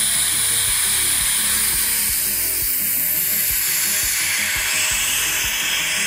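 Air hissing steadily into a vacuum chamber as it is vented back to atmosphere, over a fast, uneven low ticking.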